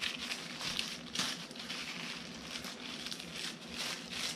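Thin paper napkin being torn and pulled away in strips from the edges of a glued board: soft, irregular crackling and rustling of tissue paper.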